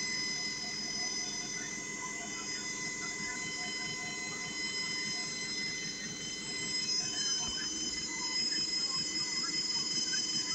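JFJ Easy Pro disc repair machine running steadily, its motor spinning the disc against the wet polishing pad with a steady high whine over a low rumble, during the compound polishing stage that takes out scratches.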